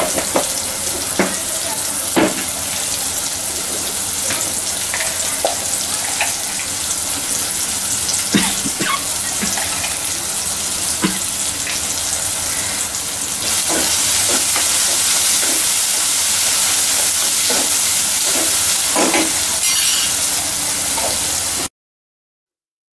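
Chopped onion, tomato and green chillies sizzling in hot oil in a kadai, with scattered pops and crackles. The sizzle grows louder about two-thirds of the way through and stops abruptly near the end.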